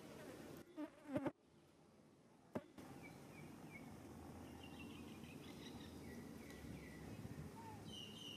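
Faint outdoor ambience with insects buzzing. A few sharp clicks come about a second in, and the sound drops almost to nothing for about a second and a half. Short high chirps follow in small groups.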